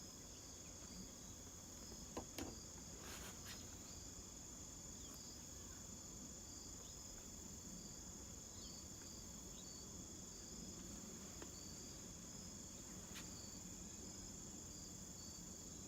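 Faint outdoor chorus of insects: a steady high-pitched trill with a softer repeating chirp under it. A few light knocks come about two to three seconds in.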